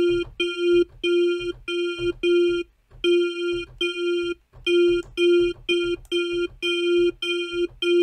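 FL Studio's GMS software synthesizer playing one short note over and over, about two and a half a second with two brief pauses. It is a bright FM bell-like tone, a sine wave modulated by a smooth square, with its filter envelope amount being adjusted as it plays. The patch is partway to a bell sound.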